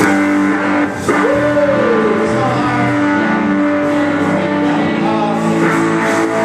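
Live rock band playing: electric guitars, bass guitar and drum kit, with a singer.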